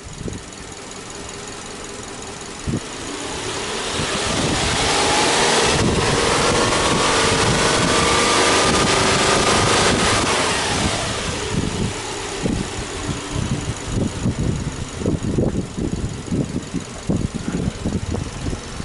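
Subaru Legacy 2.5i's EJ25 flat-four boxer engine, hood open, free-revved from idle: the revs climb slowly, are held high for several seconds, then drop back to idle. Uneven low thumps run through the idle afterwards.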